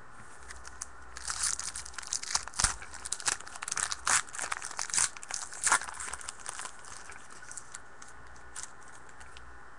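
Foil trading-card pack being torn open and its wrapper crinkled: a dense run of sharp crackling tears lasting about five seconds, then a few faint rustles.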